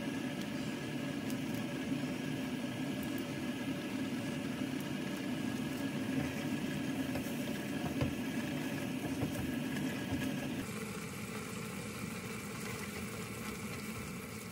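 Steady hum and bubbling of a pot of Jjawang dry noodles simmering down over a gas burner, with a few light knocks as the sauce is stirred in. The hum changes abruptly and gets a little quieter about two-thirds through.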